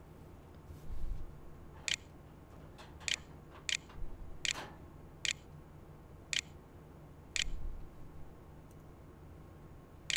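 Computer mouse button clicking, about eight single clicks a second or so apart, as characters are picked on an on-screen keyboard. A few soft low thumps come in between, over a faint steady low hum.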